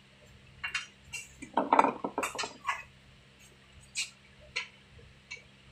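Hand tools clinking and rattling on the pipe fittings of a split air-conditioner's outdoor unit. A burst of sharp metal clicks and clatter comes about a second in, followed by a few single clicks.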